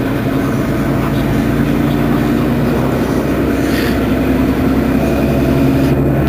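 Mercedes-Benz Citaro Facelift city bus engine idling steadily while the bus stands at a stop, with a short hiss about four seconds in.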